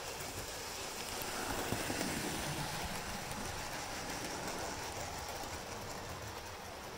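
Model railway train, a prairie tank locomotive hauling three Intercity coaches, running along the track. It grows louder as it passes close by about two seconds in, then slowly eases off.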